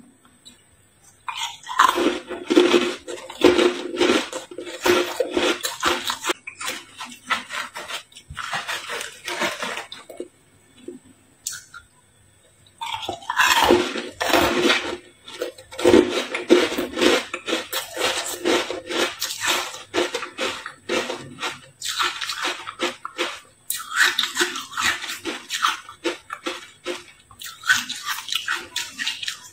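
Matcha-coated ice cubes being bitten and crunched close to the microphone, dense cracking in three long bouts with short pauses between.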